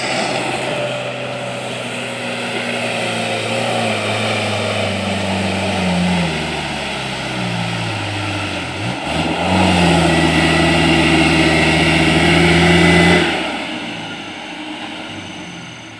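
Light truck's engine revving hard as it drives through deep mud. Its pitch sags and recovers around the middle, holds high and loudest for a few seconds, then drops away as the throttle eases near the end.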